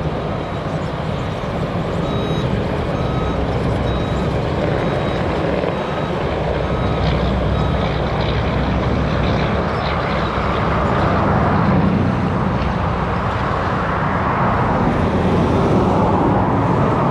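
Steady road and engine noise of a car being driven, heard from inside the cabin, growing slightly louder in the second half.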